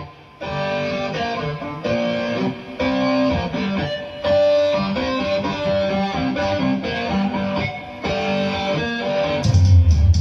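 Music led by a plucked guitar melody. A heavy deep bass comes in near the end.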